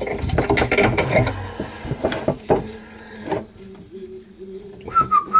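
Plastic PVC drain fittings being handled and fitted together by hand, with a run of clicks, knocks and rattles. Near the end a man starts whistling a high held note.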